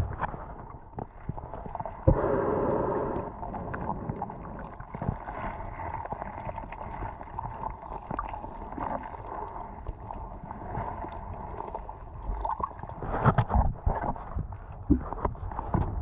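Muffled underwater noise picked up by a submerged camera: a steady gurgling wash of water with scattered small knocks and bumps. A louder gurgling surge comes about two seconds in and lasts a second or so, and the knocks grow more frequent near the end.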